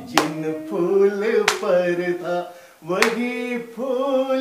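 People singing a song together unaccompanied, with three sharp hand claps about a second and a half apart keeping the beat.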